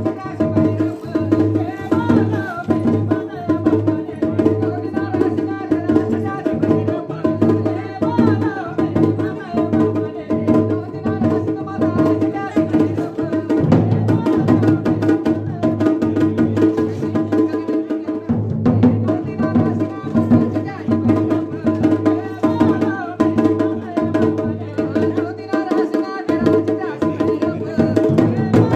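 Music: steady drumming over sustained held tones.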